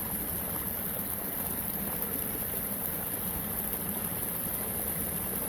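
A shallow stream running steadily, an even rushing of water.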